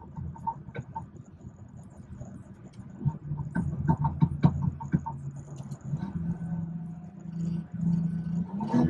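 BMW 440i's B58 turbocharged inline-six running while driving, heard from inside the cabin as a steady low hum. A run of short clicks and knocks comes through a few seconds in.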